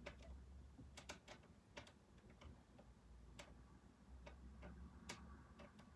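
Near silence with faint, irregularly spaced small clicks and taps, a dozen or so scattered over a few seconds.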